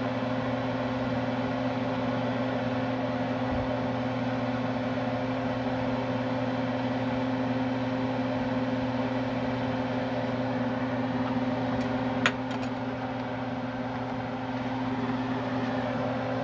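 Kitchen range hood fan running with a steady hum. A single sharp click comes about three-quarters of the way through.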